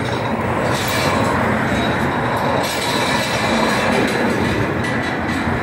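Steady rumble of road traffic, with cars and a lorry passing on the main road and a car pulling away close by.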